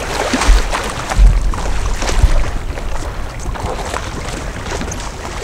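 Sea water splashing and sloshing around a stand-up paddleboard as a person in the water struggles beside it. Several deep gusts of wind hit the microphone, the loudest about a second in.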